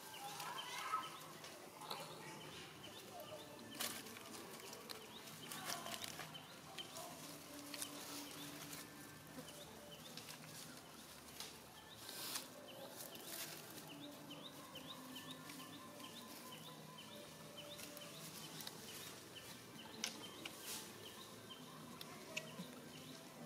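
Faint outdoor ambience: birds calling with many short chirps, a few short lower notes, and scattered sharp clicks and rustles of dry leaf litter as monkeys move about.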